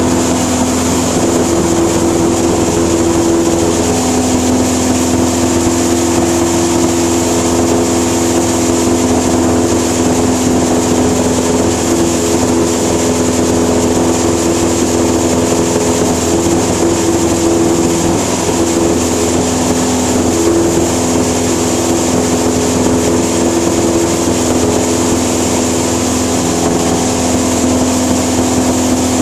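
A single-engine propeller plane's engine and propeller running steadily in flight, heard from inside the cabin. It is an unbroken, even drone with a few strong steady hum tones.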